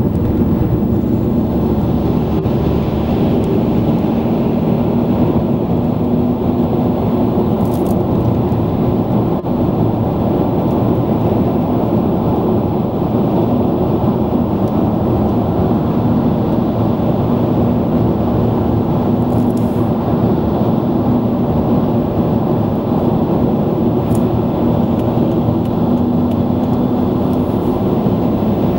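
Steady engine and tyre road noise heard from inside a car cruising at motorway speed, a low rumble with a constant hum.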